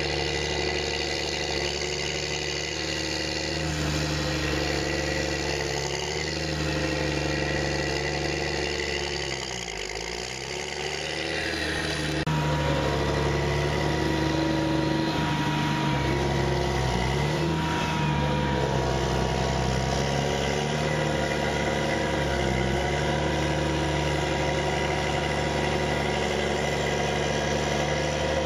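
Challenger tractor diesel engine running steadily under load while pushing silage. Its pitch sags and recovers about ten seconds in. The sound changes abruptly about twelve seconds in, after which a steady high whine runs over the engine.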